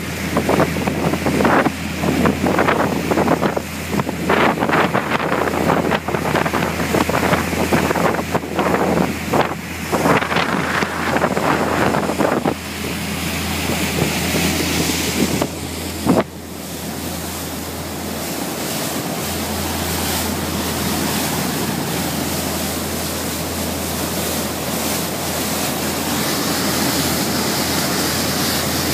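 Patrol boat running at speed: a steady low engine drone under the rush of wake spray along the hull, with heavy wind buffeting on the microphone for roughly the first twelve seconds. A single sharp knock sounds about sixteen seconds in.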